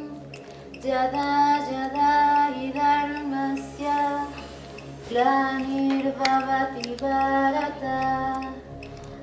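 A woman chanting a mantra in a sung voice, holding long steady notes in phrases, with a short break a little past halfway.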